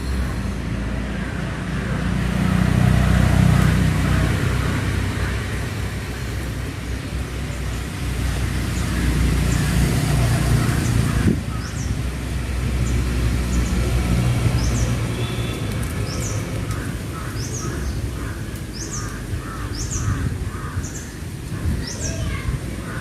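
Outdoor background of a low, steady rumble that swells twice, typical of passing traffic, with a small bird chirping about once a second in the second half.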